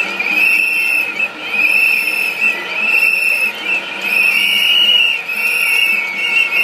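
Several whistles blown by demonstrators, shrill overlapping blasts about once a second.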